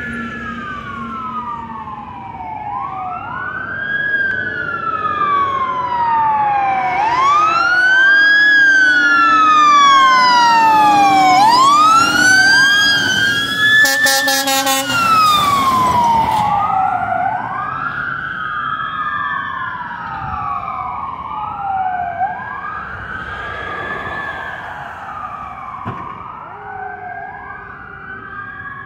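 Fire apparatus sirens wailing as the trucks approach and pass, at least two sirens overlapping, each rising quickly and falling slowly every few seconds, with a truck engine under them. The sirens are loudest about 10 to 14 seconds in. About 14 seconds in there is a harsh, rapidly pulsing blast lasting about a second.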